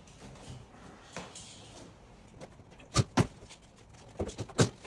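Stapled side panel of a wooden shipping crate being pulled away by hand: quiet scraping at first, then two sharp knocks about three seconds in and a quick run of sharp snaps near the end as the staples let go.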